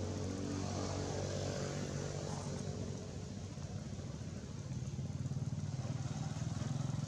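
A motor vehicle's engine running steadily as a low, rapidly pulsing hum, a little louder in the second half.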